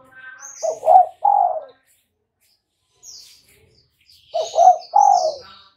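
Spotted dove cooing: two phrases about three and a half seconds apart, each of two short notes and a longer third note. Fainter high chirps from small birds sound between them.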